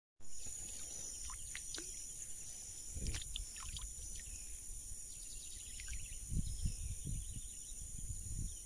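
Steady high-pitched chirring of insects in the field, with a few faint low knocks and handling sounds.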